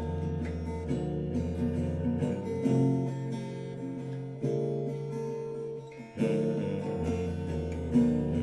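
Guitar strumming chords in an instrumental break between sung lines of a song, the chord changing a few times.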